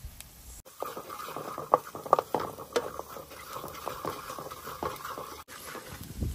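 Kitchen work sounds: a quick, irregular run of taps, clicks and scrapes, loudest about two seconds in.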